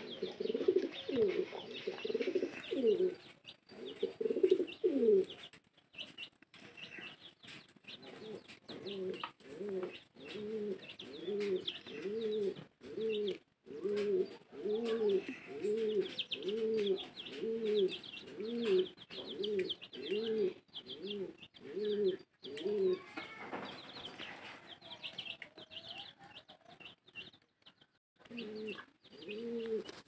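Rock pigeon cooing in a long run of short, low notes, about two a second, with thin high chirping over it.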